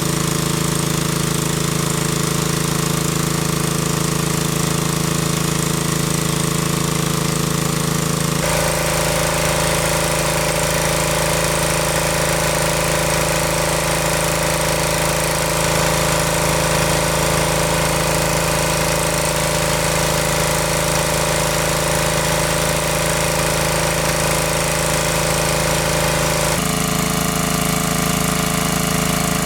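Engine of a large water pump running steadily while it sucks water. The engine note changes abruptly twice.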